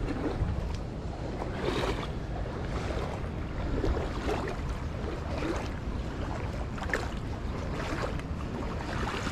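A person wading through a stream, water sloshing around the legs in irregular swishes, over a low rumble of wind on the microphone.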